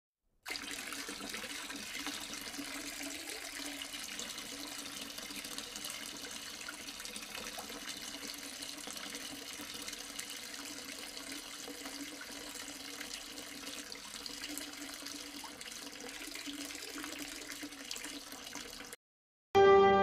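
Small tabletop fountain running: water trickling steadily down its tiers of little spillways into a pebble-filled basin. It cuts off abruptly near the end.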